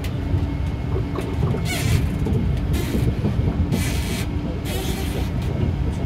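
Kobe Port Liner rubber-tyred automated people mover running along its elevated guideway, heard from inside the car: a steady low rumble with a faint constant hum. Four short hissing bursts come between about two and five seconds in.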